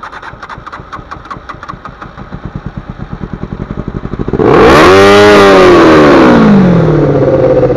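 Motorcycle's electric starter cranking rapidly and evenly, with the throttle held wide open to clear a flooded carburettor. About four seconds in the engine catches, revs up and falls back toward idle.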